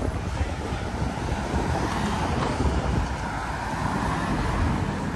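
Wind rumbling on the microphone over the noise of road traffic, with a vehicle's tyre noise swelling about two seconds in.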